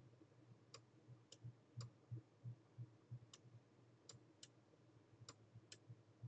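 Faint, irregular computer mouse clicks, about eight in all, over quiet room tone with a soft low thudding underneath.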